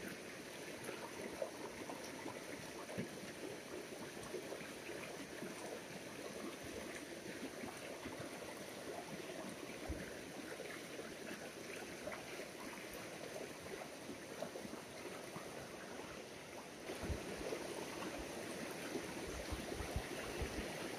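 Shallow mountain stream running over stones: a steady babble of rippling water, with a few soft bumps near the end.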